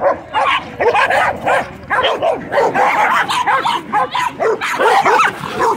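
Several dogs barking and yipping at once in a rapid, overlapping chorus, with no let-up.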